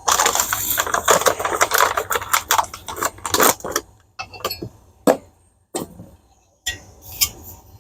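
Handling noise as items are moved about: a dense crackling and rustling for about four seconds, then scattered clicks and taps.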